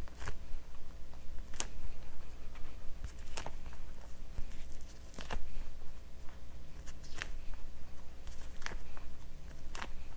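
Salami slices being peeled apart from a stack and pressed onto a soft sub roll by hand: short sticky peeling crackles and soft pats, one every second or two.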